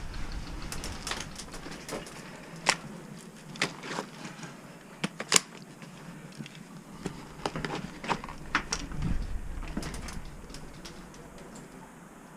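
Sporadic single semi-auto airsoft shots and BB hits: irregular sharp clicks and cracks at uneven intervals, two of them louder a few seconds in.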